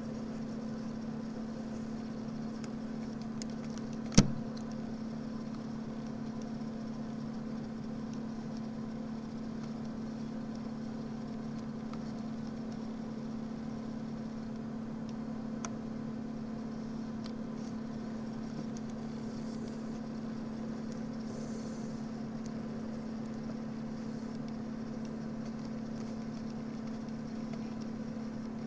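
A steady low machine hum with no changes, and a single sharp click about four seconds in.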